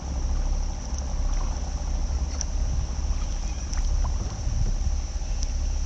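Boat engine running steadily: an even low rumble with a constant high hiss over it and a few faint ticks.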